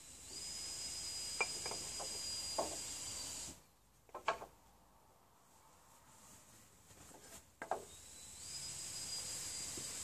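Cordless drill running steadily in wood for about three seconds, then stopping; it starts again near the end. A few sharp wooden knocks fall in between.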